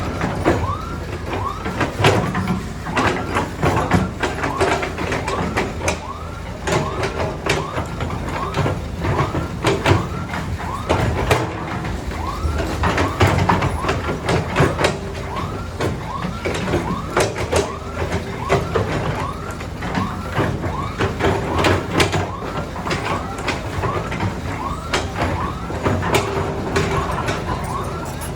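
Heavy diesel machinery running with frequent metallic clanks and knocks. Over it, a short electronic tone that rises and falls repeats steadily, more than once a second, like a vehicle's warning or siren-type horn.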